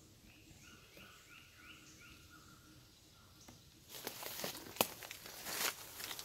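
A bird faintly sings a quick run of five or six repeated notes. About four seconds in, dry leaves and twigs begin crunching and rustling underfoot, with a few sharp snaps.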